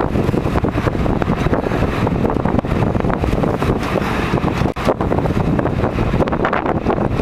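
Strong wind buffeting the microphone aboard a boat, over a steady low rumble.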